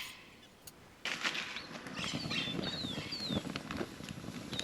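A few short, high bird chirps, each gliding downward, over a steady hiss with scattered faint crackles that starts about a second in.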